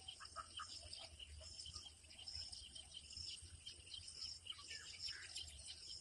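Faint steady chorus of insects trilling, with short bird chirps scattered through it.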